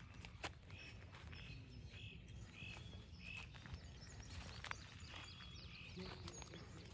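A small animal calling faintly: a short, arching note repeated about once or twice a second, with a few light clicks and a low rumble underneath.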